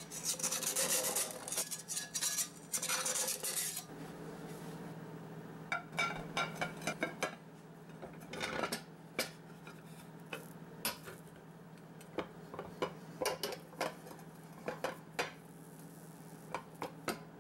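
Scraping across the rough cooking surface of a cheap modern cast iron skillet for the first few seconds. Then scattered clinks and knocks as the heavy pan is handled, lifted and turned over on a hard tabletop.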